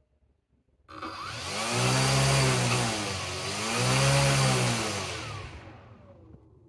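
Small brushless motor and its propeller starting abruptly about a second in and spinning up with a rising whine, easing off slightly, rising again, then spinning down with falling pitch and fading out near the end as the throttle is returned to idle.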